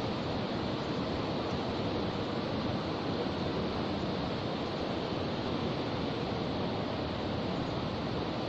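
Shallow river water flowing, a steady even rush with no breaks.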